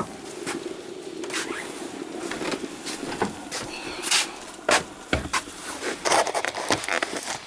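Footsteps and handling knocks and scrapes as a stainless-steel electric kettle of just-boiled water is carried and set down on a workbench, with a heavier thud about five seconds in. A steady low hum underneath fades out about five seconds in.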